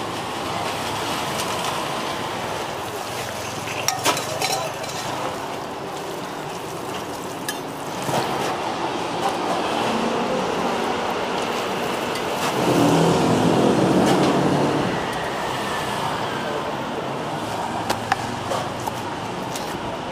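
Street-stall cooking: a banana roti frying on a flat steel griddle, with a wooden spatula scraping and occasional sharp knocks of utensils, over steady street traffic. A louder low rumble rises for a couple of seconds a little past the middle.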